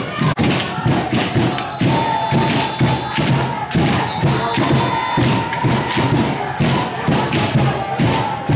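Crowd noise from spectators with a steady, rapid drumbeat of about three or four beats a second.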